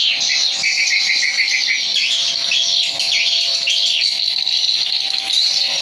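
Swiftlets chirping and twittering in a dense, continuous chorus of quick high calls and trills, with a fast run of chirps about half a second in.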